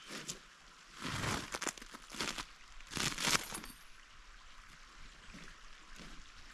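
Heavy canvas tent being unrolled and dragged over dry wood chips and leaves, rustling and crunching in a few bursts in the first half, then quieter handling.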